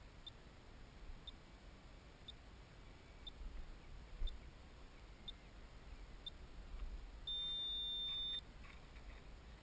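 Faint high electronic ticks about once a second, then a steady high-pitched electronic beep lasting about a second, a little after seven seconds in.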